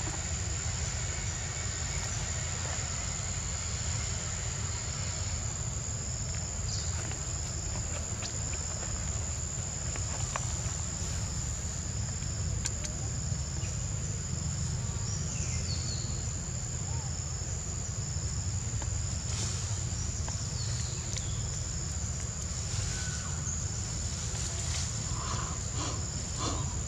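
Forest ambience dominated by a steady, high-pitched insect drone, over a steady low rumble, with a few short chirps near the end.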